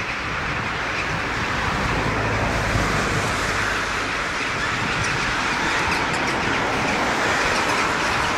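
Steady running noise of a distant train moving along the tracks of a rail yard, with a low hum that swells for a couple of seconds about two seconds in.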